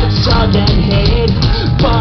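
Live pop-punk band playing: a man singing over electric guitars, bass and a steadily beating drum kit.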